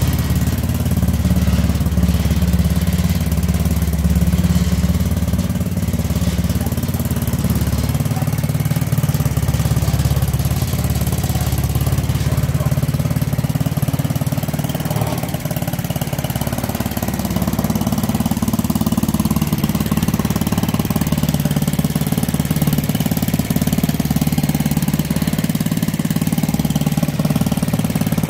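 An engine running steadily, its pitch shifting slightly about two-thirds of the way through.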